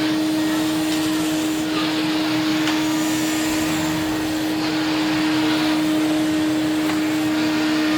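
Henry vacuum cleaner running steadily, its motor giving a constant whine over the rush of air.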